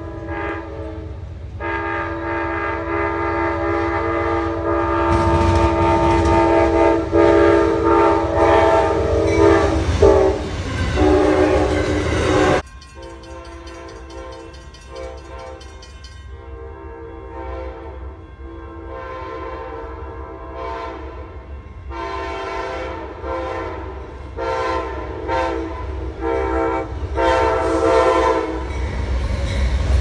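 Diesel locomotive's multi-chime air horn played in long held chords over the low rumble of the train, cut off suddenly about 12 seconds in. It comes back fainter and grows louder as an Amtrak Genesis locomotive approaches, ending in a quick run of short blasts.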